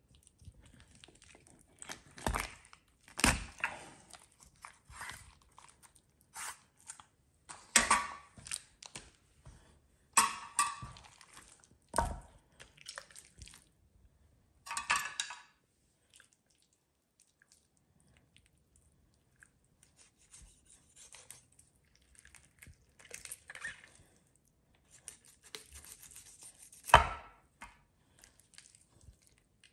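A chef's knife cutting a raw whole chicken open on a wooden cutting board: crunching through bone and cartilage and tearing of skin in scattered bursts, with sharp knocks of the blade or bird on the board, the loudest one near the end.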